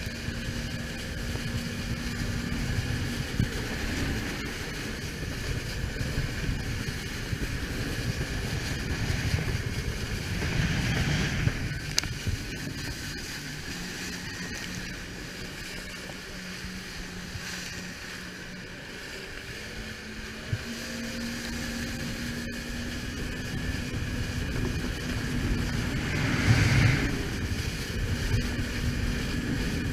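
Jet ski engine running under way, with water spray and wind rushing over the camera's microphone. The engine note drops for several seconds in the middle and rises again, and there are two louder rushes of water and wind noise, one about a third of the way in and one near the end.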